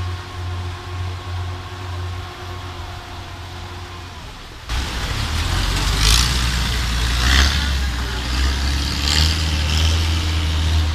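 An engine running with a steady low hum. About halfway through the sound changes abruptly and grows louder, with rushing noise that swells and fades several times.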